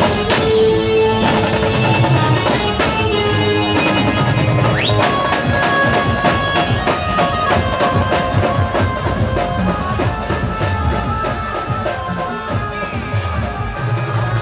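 Loud band music with a steady drum beat and sustained melody notes, played through a procession band vehicle's JBL loudspeakers.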